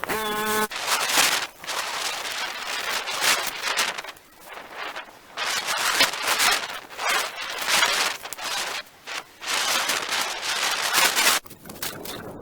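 Pole saw rasping through willow branches in uneven strokes of about half a second to two seconds, with short pauses between. A brief pitched tone sounds right at the start.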